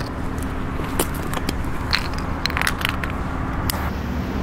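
Scattered light clicks and taps as cardboard firecracker tubes are handled and set down on asphalt, over a steady low background rumble.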